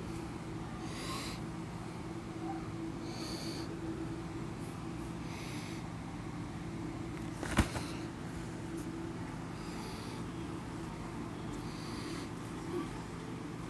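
A person breathing through the nose close to the microphone, a short puff roughly every two seconds, over a steady low hum. One sharp click about halfway through is the loudest sound.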